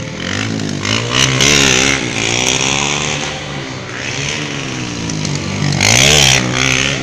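Motorcycle engine revving up and down repeatedly during stunt riding. The revs peak loudest about a second in and again near the end.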